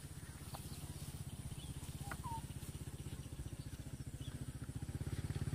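A small engine running steadily with a fast, even low pulse, growing louder toward the end. A few short bird chirps sound over it.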